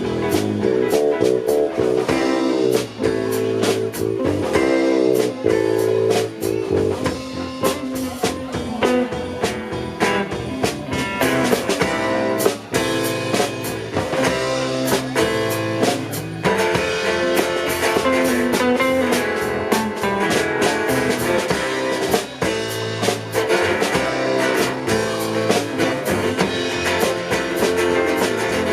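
Live band playing an instrumental passage, with guitar over a steady drum beat.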